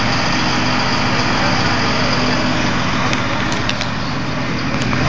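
Fire engines' motors running steadily, a loud continuous mechanical drone with a low hum.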